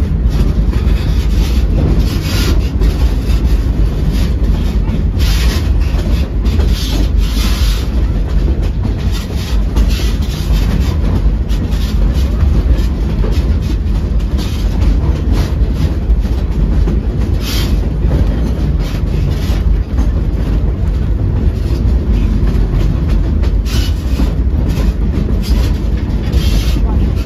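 Narrow-gauge railroad passenger car rolling along the track, heard from on board: a steady low rumble with irregular clicks and clatter from the wheels and rails.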